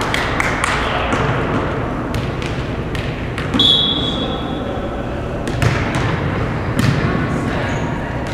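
A whistle sounds one steady blast of about a second, then a volleyball is struck twice, sharp slaps a little over a second apart that echo in a large gymnasium.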